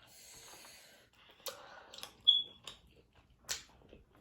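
Mouth and hand noises of eating at close range: a soft rustle, then a few sharp clicks and smacks, with one brief high squeak about two seconds in.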